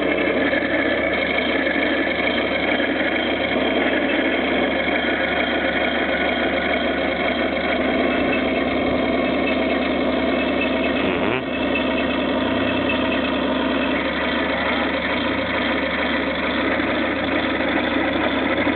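Radio-controlled model Brummbär tank running with a steady engine-like drone as it climbs a bridge ramp and drives along it, with a brief dip and click about eleven seconds in.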